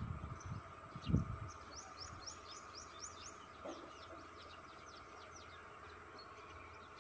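A bird singing a quick run of high, downward-slurred notes for about two seconds, trailing off fainter, over a steady drone of insects. A low thump comes about a second in.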